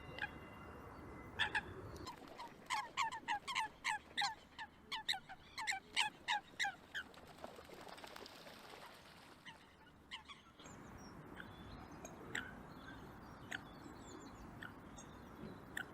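Eurasian coots calling: a quick run of about fifteen short, sharp, downward-slurred notes, roughly three a second, which then stops. Later only a few scattered faint ticks and chirps.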